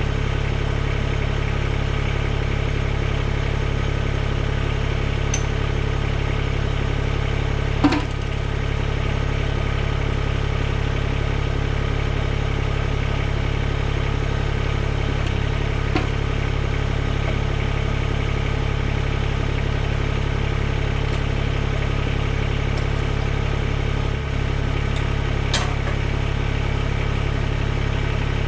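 Mahindra eMax 20S HST compact tractor's diesel engine running steadily at idle. A single sharp knock comes about eight seconds in, with fainter clicks later.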